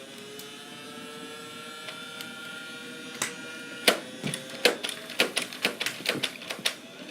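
Motorized Nerf blaster: a steady motor whine that rises slightly, then a rapid run of sharp clicks, about four or five a second, from about four seconds in, as darts are fired.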